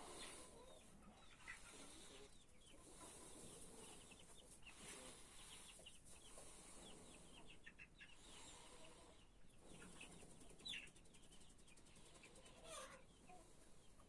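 Dominant chickens clucking faintly: many short calls scattered throughout.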